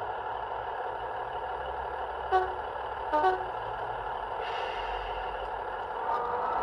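Class 150 diesel multiple unit sound file on a model train's sound decoder, played through the model's small speaker: the engines idle steadily while two short horn blasts sound about two and three seconds in, the second a two-tone low-then-high, followed by a hiss lasting about a second and a half.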